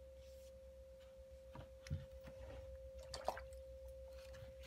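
Quiet room tone with a steady electrical hum, broken by a few faint ticks and rustles from a brush and paper being handled on the sketchbook.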